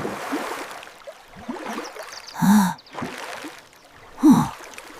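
Two short gasp-like vocal sounds, each falling in pitch, about two seconds apart, over a faint hiss.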